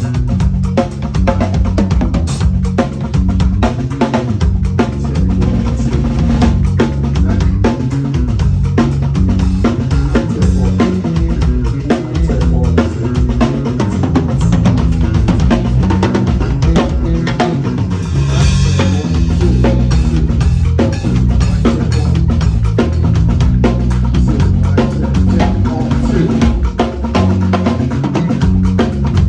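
Drum kit played continuously in a steady groove, with bass drum and snare strokes and a cymbal wash about eighteen seconds in.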